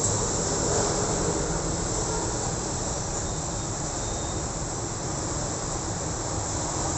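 Street traffic on a busy town road: cars and motorcycles passing. It is a steady rumble with a constant high hiss over it.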